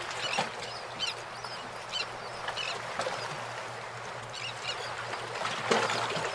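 Birds calling in short, repeated notes over a steady outdoor hiss, with a faint low hum underneath.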